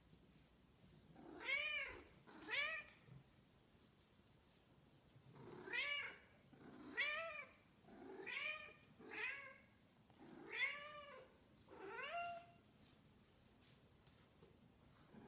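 Snowshoe cat meowing over and over: two meows, a pause of about three seconds, then six more in quick succession, each rising and then falling in pitch.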